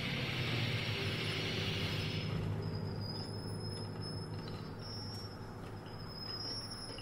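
Chamber orchestra with live electronics playing an extended-technique noise texture: a dense airy hiss over a low steady drone, which thins out about two and a half seconds in, leaving faint thin high tones.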